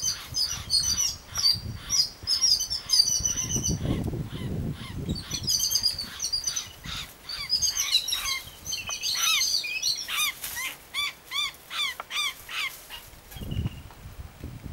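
Birds giving rapid, repeated harsh calls, several a second, in clusters that die away near the end. These are alarm calls around a cat holding a caught koel.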